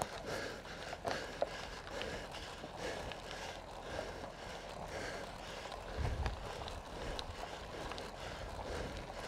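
Cyclist breathing hard in a rhythm of about one breath a second while pedalling a steep climb without motor assist.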